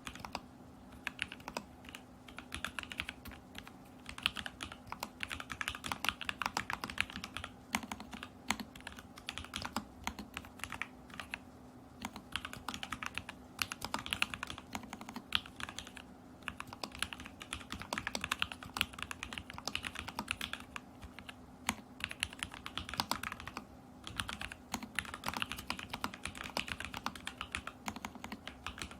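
Steady typing on an Alice-layout mechanical keyboard with lubed and filmed Lavender switches, polycarbonate Whale keycaps and a stacked acrylic case with tape mod. Quick runs of keystrokes come in bursts separated by brief pauses, as in continuous prose typing.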